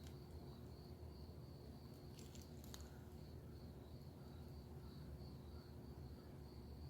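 Faint, steady insect chirping at a high pitch, pulsing evenly, with a few soft clicks about two to three seconds in.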